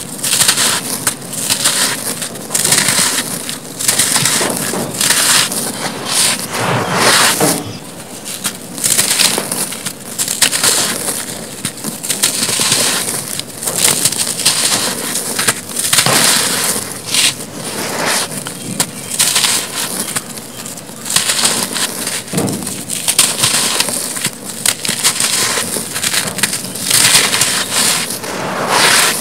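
Hands crushing and crumbling soft, sandy cement blocks: a run of irregular gritty crunches, with crumbs and grit falling back onto a pile of dry powder.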